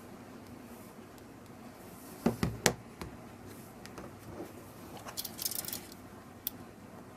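Handling noise: two sharp knocks in quick succession a little over two seconds in, a short crackly rustle around five seconds, and a single click near the end, over quiet room tone.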